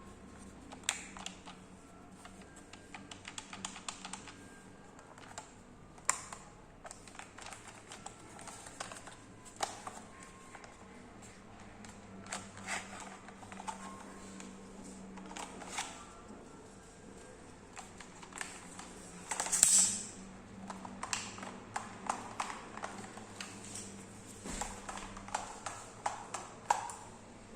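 Scattered plastic clicks and taps from a spring airsoft gun being handled, with one louder, hissing snap about twenty seconds in.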